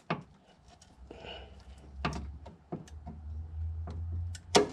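Hands handling automotive wiring at the fuel pump harness: light rustling with several sharp clicks, the sharpest near the end, over a low hum that runs from about a second in until just before the end.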